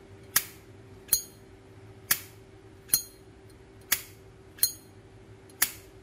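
Solid brass Zippo lighter's lid flipped open and snapped shut again and again: seven sharp metallic clicks about a second apart, some with a brief ring. This is the lighter's open-and-close sound, called quite a nice sound.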